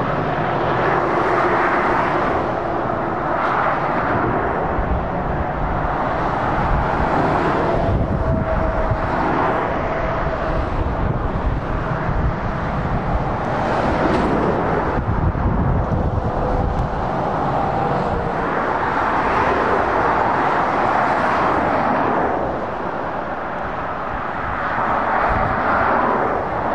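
Motorway traffic passing: lorries, vans and cars driving by with a continuous tyre-and-engine roar that swells and eases as each vehicle goes past.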